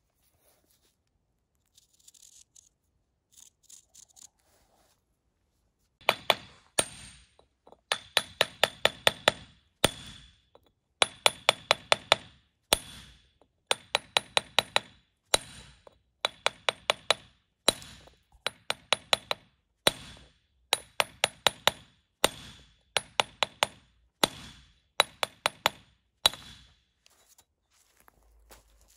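Club hammer striking a steel splitting iron held on a natural-stone paving sett, in quick runs of sharp, ringing metallic clinks, several blows a second with short pauses. The blows start about six seconds in and stop near the end, when the sett splits into two triangular pieces.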